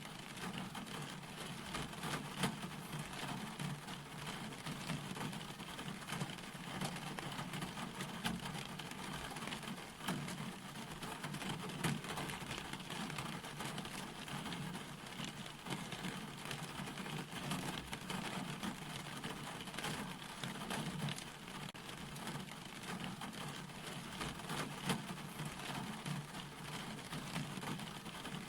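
Steady rain falling, with a constant hiss dotted with many small drop ticks.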